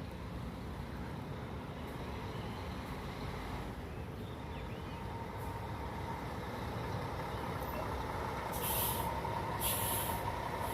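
Diesel bus engine running close by, with a steady whine that grows louder in the second half. Near the end come two short hisses of air from the air brakes, about a second apart.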